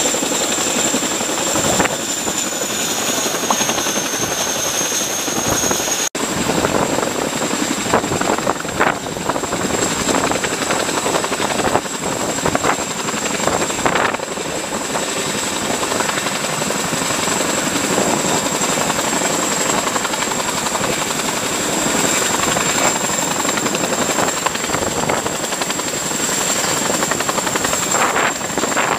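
CH-47 Chinook tandem-rotor helicopter hovering close by: loud, steady rotor and engine noise with a high turbine whine over it. The sound breaks off for an instant about six seconds in and carries straight on.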